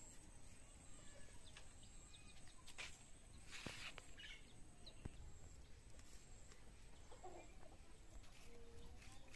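Faint chickens clucking now and then, with a few light clicks and a brief rustle as sticks are fed into a wood fire.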